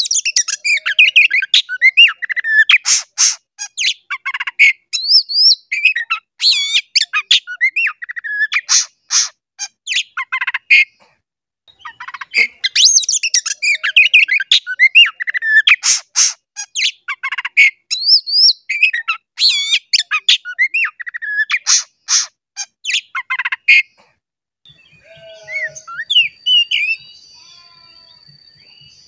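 Oriental magpie-robin (kacer) singing a loud, rapid, varied song of whistles mixed with harsh clicking notes, with a short break about 11 s in. The song stops about 24 s in, leaving fainter bird calls and a steady high tone.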